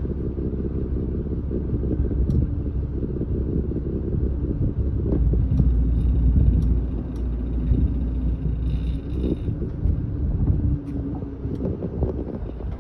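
Lobster boat's engine running with a steady low rumble while the boat is manoeuvred into its berth, swelling a little in the middle as the throttle is worked.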